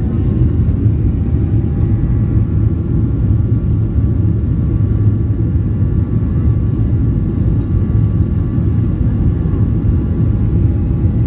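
Boeing 737-800's CFM56-7B27E turbofan engines running, heard from inside the cabin beside the engine as the plane rolls along the runway: a loud, steady low rumble with faint whining tones above it.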